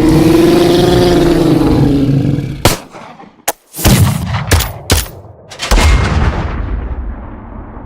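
Boom Library sound-effect demos. First a loud sustained rumble with a tone that rises and then falls for about two and a half seconds. Then about six sharp gunshot-like blasts over some three seconds, the last fading out in a long echoing tail.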